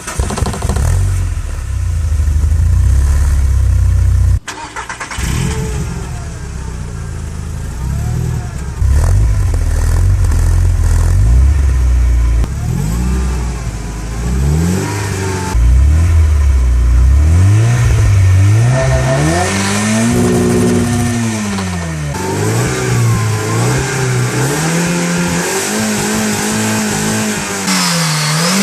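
Volkswagen Golf GTI engine running at low revs, then revved again and again, its pitch rising and falling in a string of swells through the second half.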